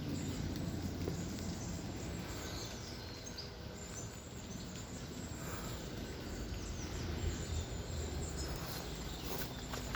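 Outdoor ambience: a steady rushing hiss with a few faint, high bird chirps in the middle.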